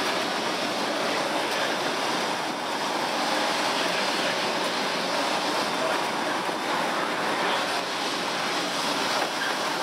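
Street tram rolling along its rails: a steady, even noise of wheels and car body, with no change in pace.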